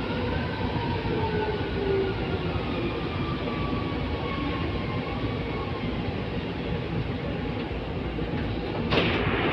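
Inside a Metro Manila MRT-3 train car as it slows into a station: a whine from the drive falls steadily in pitch over a constant rumble from the running gear. About nine seconds in there is a sudden hiss as the train comes to a stop.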